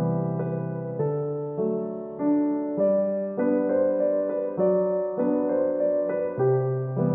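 Background music: a gentle piano piece, its chords struck and left to fade at an even pace about twice a second.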